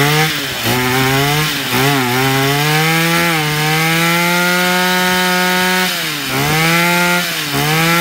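Two-stroke ECHO brush cutter engine running at full throttle on a test start. The throttle is eased off and opened again a few times, so the pitch drops briefly and climbs back: about half a second in, near two seconds, and twice near the end.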